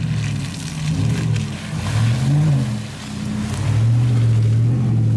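Chevrolet Silverado pickup truck's engine driving past, its pitch rising and falling twice as the throttle changes, then holding steady near the end.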